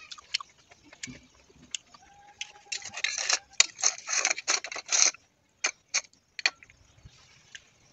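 Metal spoon clinking and scraping against a steel bowl of cooked moringa leaves, with scattered sharp ticks and a dense, louder run of clicks and scrapes about three seconds in.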